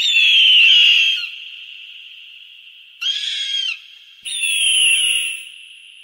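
A hawk screaming three times, each call about a second long and falling slightly in pitch, with a ringing echo that carries on between the calls.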